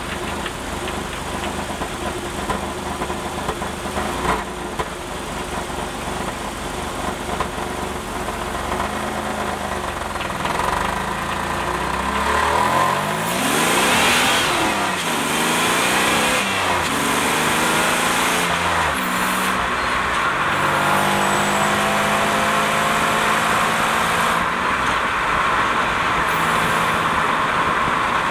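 Series II 3800 V6 and Getrag 282 manual transaxle of a 1988 Pontiac Fiero running, heard from beneath the car, with a rattle the owner traces to the Getrag, out of time with the engine. The engine note climbs and grows louder about halfway through, then falls back and settles into a steady run.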